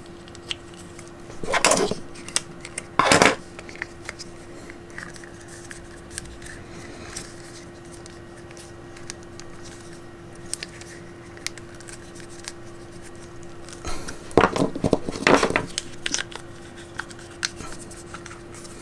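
Small plastic figure parts being handled and pressed together: scattered light clicks, with a few louder rubbing and clicking bursts about two and three seconds in and again near the end.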